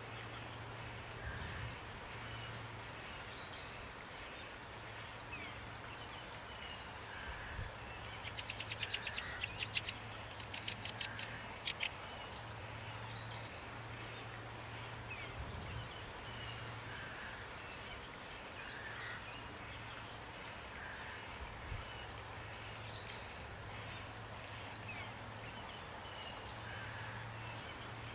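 Several songbirds chirping and calling in short high notes, with a fast rattling trill about a third of the way in, over a steady hiss of rain.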